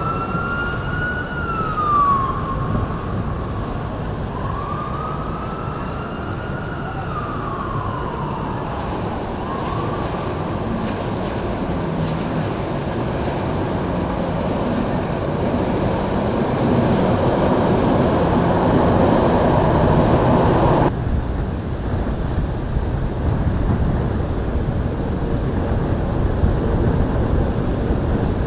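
A wailing siren rising and falling in pitch about three times over the first ten seconds, over a steady rush of boat engines and churning water. The background changes abruptly about twenty-one seconds in.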